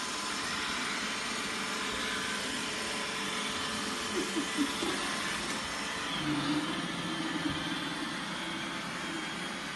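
Vacuum cleaner running steadily, with a few brief low sounds over it about four to seven seconds in.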